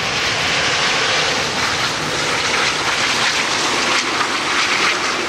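Boeing 747-8F's GEnx engines in reverse thrust during the landing rollout, a loud steady rushing noise mixed with the hiss of tyres throwing spray off a wet runway.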